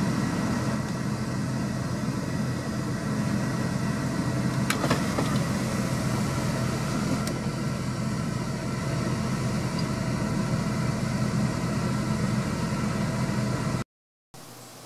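Steady hum of an idling vehicle engine, even and unchanging. It cuts off abruptly shortly before the end, leaving only a faint hiss.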